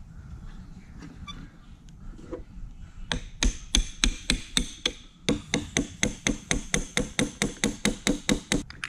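Ball-peen hammer tapping a steel punch, metal on metal, to drive the rocker arm shafts out of a Harley Twin Cam rocker arm support. After about three seconds of quiet come about thirty quick, even taps, roughly five a second, with a brief pause midway.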